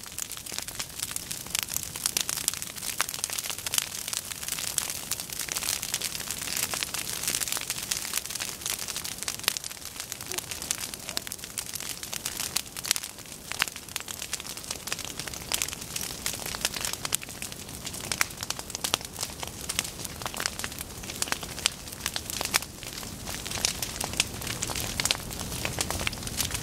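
Prairie grass fire burning through dry standing tall forb stalks such as goldenrod, a dense, continuous crackling.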